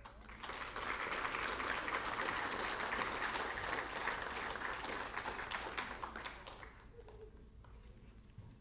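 Audience applauding: a crowd's clapping that starts right away, holds steady for about six seconds, then dies away.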